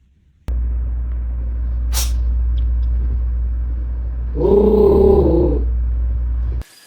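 Steady low rumble that starts suddenly and cuts off near the end, with a single click about two seconds in and a short sound of wavering pitch about four and a half seconds in.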